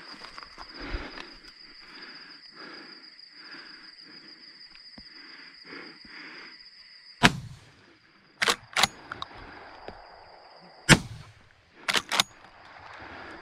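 Footsteps through grass, about two a second, then two shots from a lever-action 12-gauge shotgun about three and a half seconds apart. About a second after each shot come two quick metallic clacks as the lever is worked to eject the spent shell and chamber the next.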